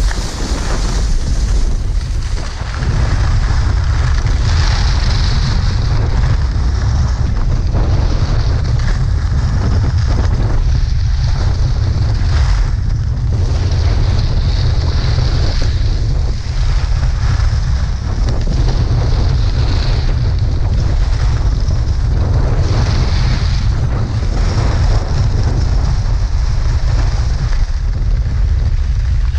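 Wind buffeting an action camera's microphone during a ski run downhill, a steady rumble, with the skis hissing and scraping over packed snow, swelling and easing as the skier turns.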